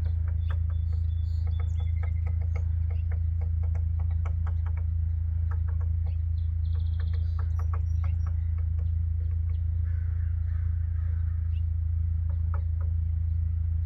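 Downy woodpecker pecking at a tree: light irregular taps, sometimes several in a second, over a steady low hum.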